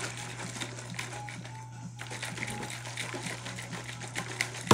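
A plastic shaker cup of water and G Fuel drink powder being shaken hard to mix it: quick, uneven sloshing and clattering, ending in a louder knock.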